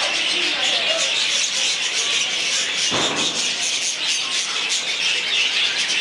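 A flock of budgerigars chattering and chirping continuously. There is a short muffled bump about halfway through.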